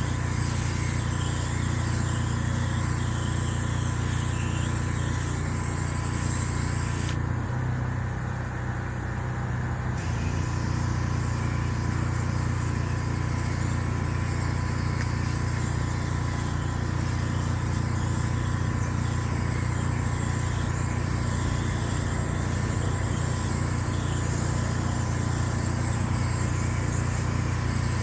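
Small petrol engine, the pressure washer's, running steadily at a constant drone with a hiss above it; the hiss drops out for a few seconds about a quarter of the way in.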